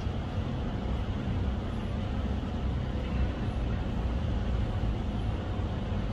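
Steady low rumble of a boat's engine running.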